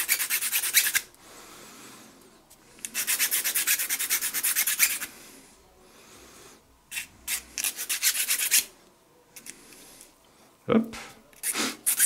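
Hand file rasping across a G10 fibreglass-epoxy knife scale in bursts of quick strokes a second or two long, with pauses between them. A short thump comes near the end.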